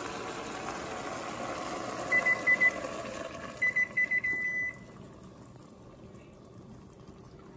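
Short electronic beeps at one pitch from a kitchen appliance, three about two seconds in and then a quicker run ending in a longer beep about four seconds in, over the steady hiss of broth simmering in an enameled Dutch oven as heavy cream is poured in. The simmering hiss drops away just before five seconds.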